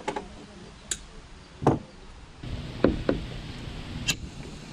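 A handful of short, sharp knocks and clicks from hand tools and the solar panel's fittings being handled against the van's metal roof. A steady low hum comes in about halfway through.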